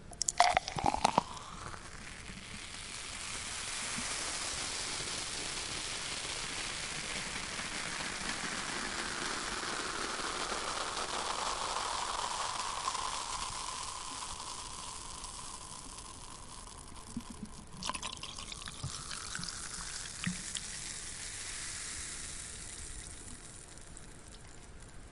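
Cola poured into a glass: a few sharp splashes in the first second or so, then a steady pour with a hissing fizz that slowly fades, and scattered small pops and drips near the end.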